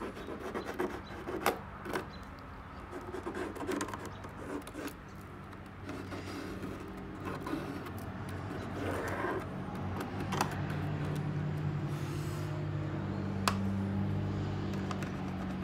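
Pencil scratching and tapping as it is traced round a wooden template held on a model airplane's wing, with a sharp click near the end. A steady low machine hum comes in about six seconds in and grows louder.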